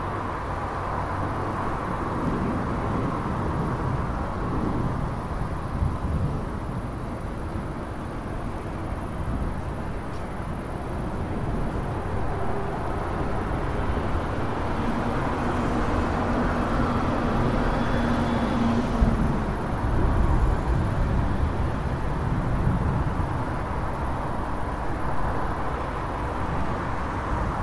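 Thunderstorm with passing cars: low thunder rumbles swell and fade a couple of times over a steady hiss, with the sound of vehicles going by.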